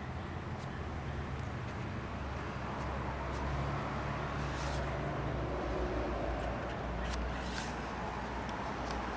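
Paper pages of a hand-made art journal being handled and turned, with a few brief rustles, over a steady low outdoor rumble.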